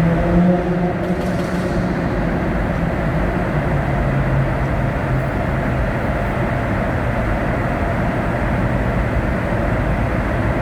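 Mercedes-Benz vehicle running with a steady rumble and an engine hum that drops in pitch about four and a half seconds in.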